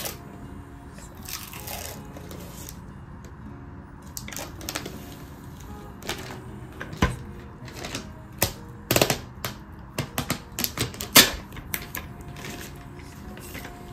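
Miniature dachshund sniffing and nosing at a carpet in quick bursts of sniffs and rubs, searching for more treat. The sniffing starts a few seconds in and is busiest and loudest in the second half. Faint background music plays under it.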